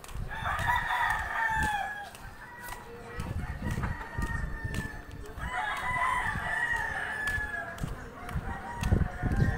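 A rooster crowing twice, each crow about two seconds long and trailing off at the end, the second coming about five seconds after the first.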